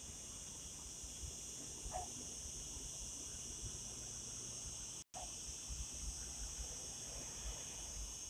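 Faint, steady high-pitched chirring of crickets in an evening chorus, over a low rumble of wind on the microphone; the sound drops out for an instant about five seconds in.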